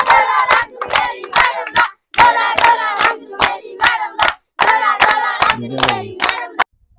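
A group clapping hands in a steady rhythm, about three claps a second, for gidha dancing, with voices chanting and calling along. The clapping and voices stop suddenly near the end.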